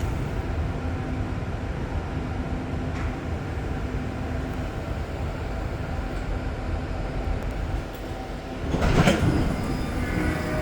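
REM light-metro train car rumbling steadily from inside. About nine seconds in there is a sudden loud rush of noise as the doors slide open at the station.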